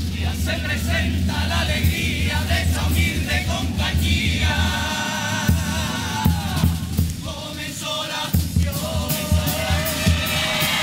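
A carnival comparsa chorus singing together, accompanied by guitars and drums, with regular drum strikes under the voices.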